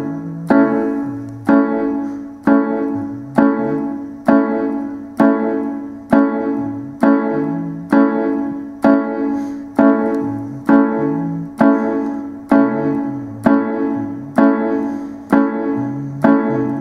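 Electric piano playing a repeated A major chord on the offbeats, beats 2 and 4, for a reggae feel: short chord strikes about once a second, each left to die away before the next.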